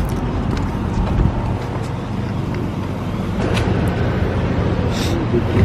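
Steady low rumble of idling fire engines, with a few faint clicks.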